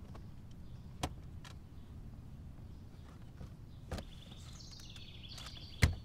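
Knocks and clicks of hands rummaging around a car's interior: three short knocks, the last near the end the loudest thump. A bird chirps over the end, its call sliding down in pitch, above a low steady outdoor background.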